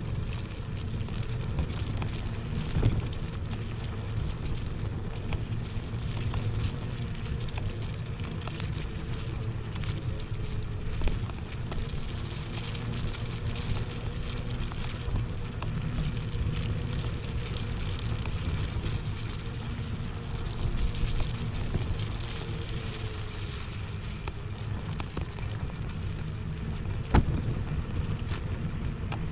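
An IO HAWK Legacy electric scooter is ridden off-road over a rough, muddy track. The tyres give a steady low rumble, mixed with wind buffeting the microphone and a faint steady hum. A few sharp knocks from bumps come through, the sharpest near the end.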